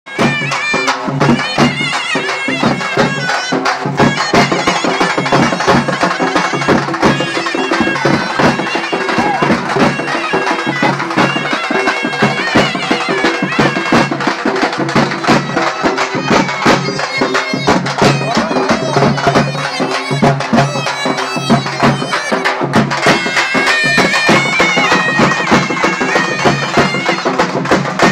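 Loud procession band music: a reedy pipe melody over a steady drone, with rapid drumbeats.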